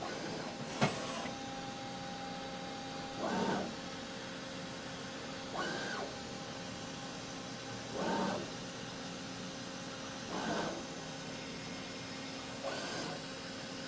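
CNC vertical mill running an air-cut test of a bolt-circle spot-drilling program: a steady spindle and machine hum with a light tone, and five short rushing swells about two seconds apart as the axes move the spot drill from hole to hole without cutting.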